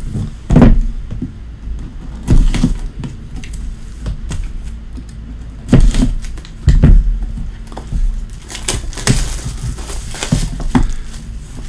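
A shrink-wrapped cardboard trading-card box is handled on a table: several sharp knocks and thumps as it is picked up, cut open with a utility knife and set down. About nine seconds in, the plastic shrink wrap crinkles as it is torn off.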